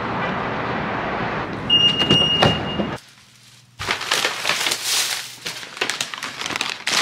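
Steady background rumble of a parking garage with a brief high beep and a few clicks, then a cut; from about four seconds in, paper and plastic shopping bags rustling and crinkling as they are carried and handled.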